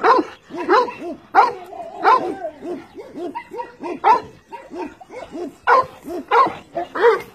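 An 18-month-old female Cane Corso barking in a steady series, about one bark every two-thirds of a second, with the barks weaker for a couple of seconds in the middle.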